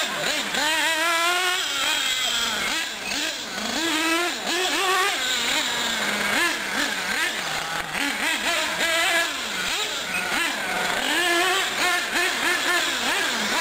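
Radio-controlled off-road cars racing on a dirt track, their motors whining up and down in pitch again and again as they accelerate and brake through the turns. Several cars are heard at once.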